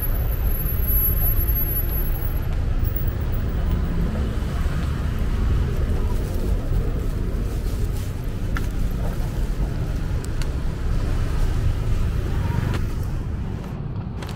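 City street ambience dominated by a steady low rumble of road traffic, with a few faint clicks.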